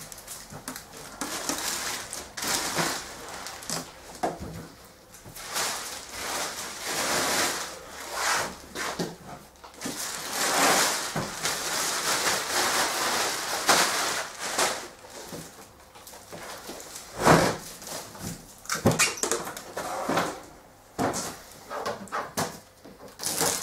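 Plastic wrapping rustling and packing tape being peeled and pulled off a boxed 3D printer, in irregular bursts, with a sharp knock about two-thirds of the way through.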